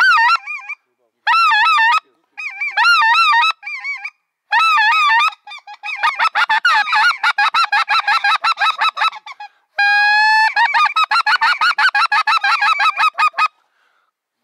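Geese honking in short runs, then a fast, steady chatter of honks and clucks with one long rising note about ten seconds in.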